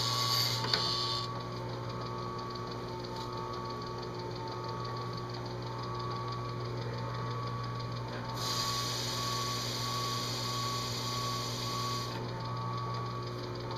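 Drill press with a DC motor running steadily with a hum while its spinning engine-turning tool is pressed onto an aluminum dash panel, hissing against the metal as it scuffs a swirl spot, once briefly at the start and again for about four seconds past the middle.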